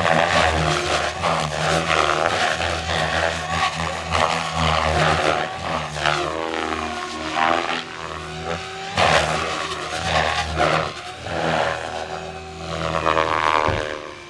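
Goblin 500 electric RC helicopter flying 3D aerobatics: the main rotor's whooshing chop and the drivetrain whine sweep up and down in pitch over and over, swelling and fading as the helicopter passes and changes direction.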